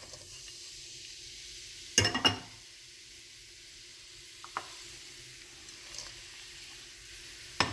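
Shredded cabbage and carrots sizzling steadily in hot oil in a frying pan, with a utensil clattering against the pan while stirring about two seconds in, and again briefly near the end.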